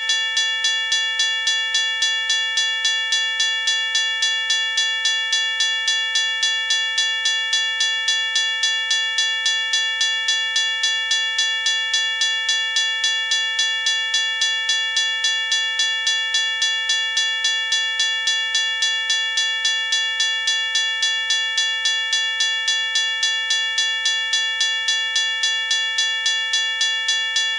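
Safetran Type 1 electronic railroad crossing bell (E-bell) ringing continuously: an electronic imitation of a mechanical crossing bell, striking evenly at about two strikes a second, with a low tone that keeps ringing between strikes.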